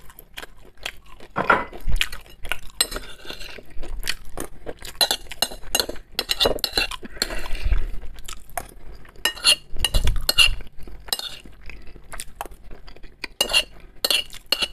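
A metal spoon clinks and scrapes against a ceramic plate as buckwheat is scooped up, in irregular bursts of sharp clicks. Close-miked chewing of grilled kupaty sausage and buckwheat comes in between.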